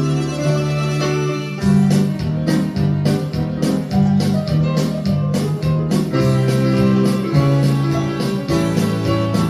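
Instrumental interlude of a karaoke backing track, with keyboard and guitar parts. A steady beat comes in about one and a half seconds in.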